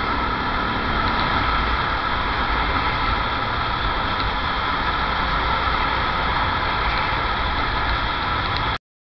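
Steady engine and road noise of a motorcycle riding in city traffic, cutting off suddenly near the end.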